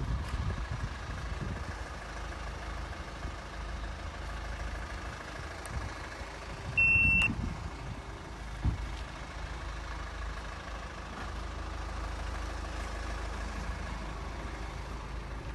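A single high electronic beep, about half a second long, about seven seconds in, from a UNI-T UT343D coating thickness gauge being switched on to measure paint thickness. A steady low outdoor rumble lies underneath.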